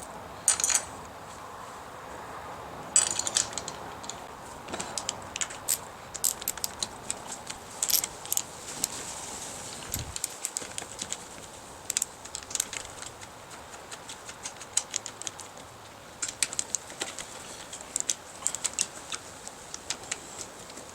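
Metal clicks and clinks of hand tools and bolts while a dirt bike's new handlebar top clamp is fitted and bolted down, with scattered single knocks and several runs of rapid clicking.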